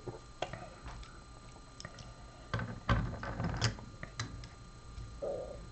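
Metal clicks and knocks as a lock cylinder is handled and clamped into a vise, with a cluster of louder knocks about halfway through.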